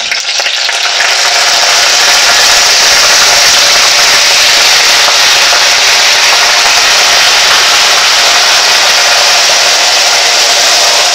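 Marinated silkworm pupae dropped into hot sesame oil in a frying pan: loud, steady sizzling and spattering that builds over the first second or so.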